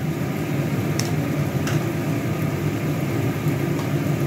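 A steady low mechanical hum with an even background noise. Two faint ticks come about a second and about a second and a half in.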